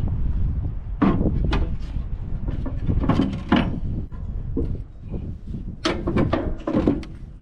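A series of metal clunks and knocks, like a compartment door and heavy batteries being handled while batteries are installed, over a steady low rumble.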